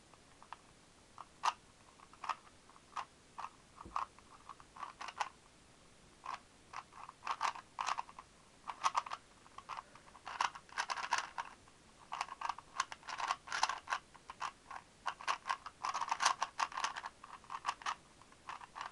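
Rubik's Speed Cube's plastic layers being turned fast during a solve, clicking and clacking. The turns come in quick flurries, a few scattered clicks at first and then dense runs of turns.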